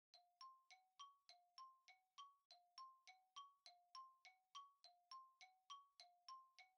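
Faint quiz countdown sound effect: short chime-like ticks, about three a second, switching between two pitches, marking the thinking time for reading the price aloud.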